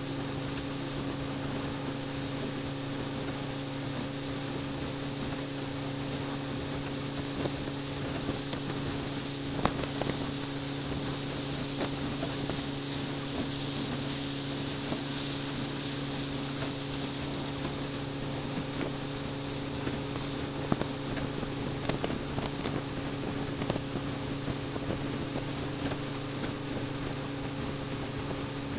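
Small ferry boat's engine running steadily under way, an even hum over a constant rush of wind and water, with a few brief knocks.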